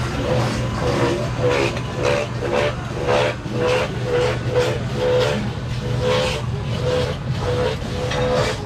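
A motor vehicle engine running with a steady low hum, over which a short pitched sound repeats about twice a second.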